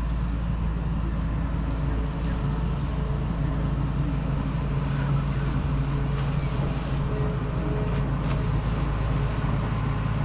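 Steady low hum of a vehicle engine with outdoor traffic noise.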